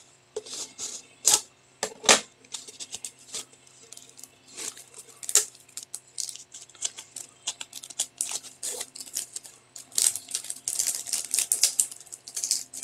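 Plastic wrapping crinkling and crackling in irregular clicks as a tightly wrapped diamond painting canvas is unwrapped by hand, the crinkling getting denser and more continuous near the end.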